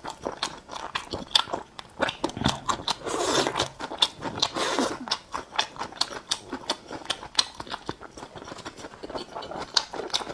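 Close-miked chewing of skewered meatballs in spicy sauce: many sharp mouth clicks and smacks throughout, with two longer, louder stretches of mouth noise about three and four and a half seconds in.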